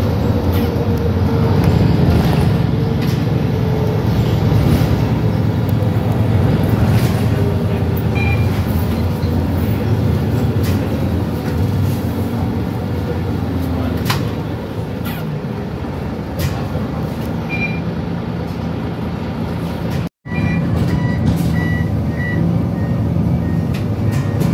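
Cabin sound of a MAN NL323F (A22) Euro 6 city bus under way: a steady diesel engine hum with drivetrain whine and road noise, the pitch falling in the first couple of seconds and the engine easing off about two-thirds through. The sound drops out for a moment, then a string of short high beeps near the end.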